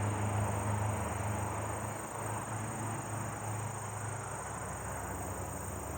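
Steady low machine hum, with a high, steady insect trill above it.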